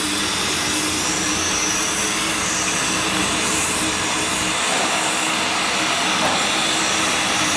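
Steady hiss and rumble of Western Maryland steam locomotive 734 and its train, an even noise with no clear beat.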